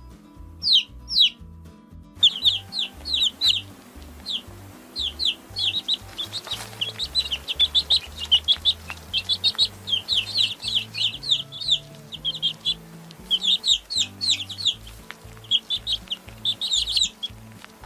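Baby chicks peeping: short, high calls that fall in pitch. A few calls at first, then from about two seconds in a busy chorus of many overlapping peeps. Soft background music runs underneath.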